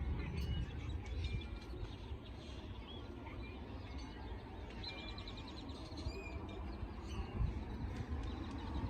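Small birds chirping, with a quick trill about five seconds in, over a steady low outdoor rumble.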